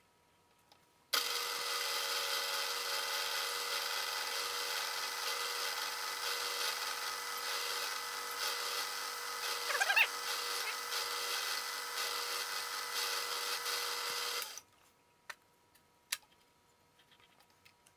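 Milling machine spindle running with a twist drill boring a hole in an aluminum block: a steady machine hum with a hiss of cutting that starts suddenly about a second in and cuts off shortly before the end, with a brief louder squeal about ten seconds in.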